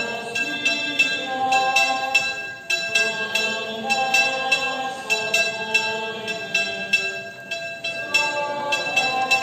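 Slow processional melody of held notes changing about once a second, over repeated ringing clinks of bells about three times a second.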